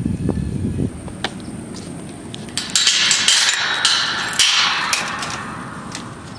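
A chain rattling and clanking against a metal tube pasture gate as it is unhooked, loudest from about three to five seconds in. Wind rumbles on the microphone during the first second.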